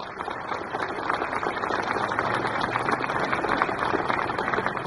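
Crowd applauding: a dense patter of many hands clapping that builds over the first second, then holds steady.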